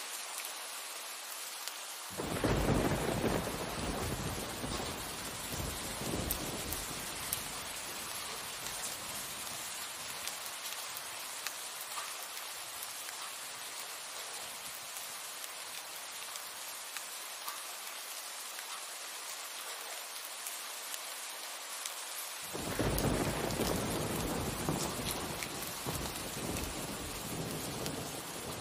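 Steady rain with two rolls of thunder: the first breaks suddenly about two seconds in and rumbles for several seconds, the second comes near the end.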